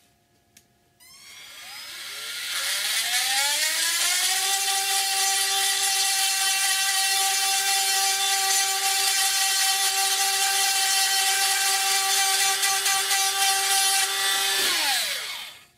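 Dremel rotary tool switching on and spinning up to a steady high whine with a hiss over it as the bit grinds excess resin off a resin model-kit part, then winding down and stopping near the end.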